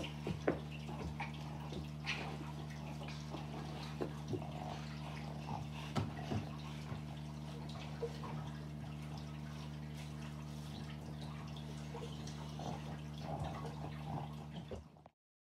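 A small dog playing on a carpeted floor: scattered light clicks, wet mouth noises and scuffling over a steady low hum. The sound cuts off suddenly near the end.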